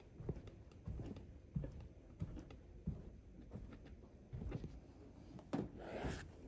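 Soft, slow footsteps on a wooden floor, one quiet thump about every two-thirds of a second. About six seconds in comes a brief rustling swish as a hand pushes against a white fabric door curtain.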